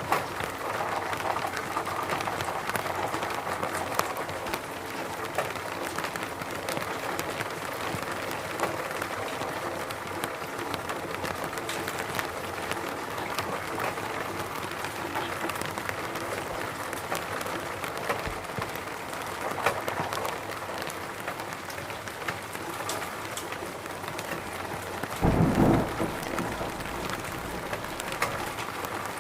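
Steady rain falling, with many individual drops ticking through it. A short, loud low rumble comes near the end.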